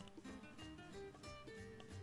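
Faint background music of short plucked guitar notes.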